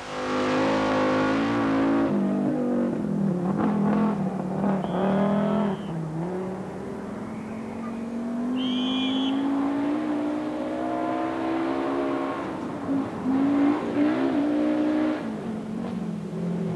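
Rally car engine accelerating hard through the gears, the pitch climbing and dropping at each shift in the first few seconds, then one long steady climb. The car is the MG Metro 6R4 Group B car, whose 3-litre V6 has no turbo.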